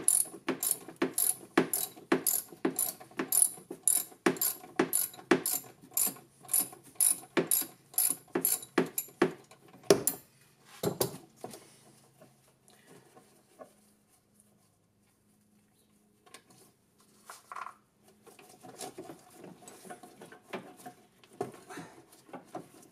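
Hand ratchet wrench clicking steadily, about two to three clicks a second, as it backs off the nut on a golf cart's forward/reverse switch arm. The clicking stops about ten seconds in after two louder knocks, and only faint handling sounds follow.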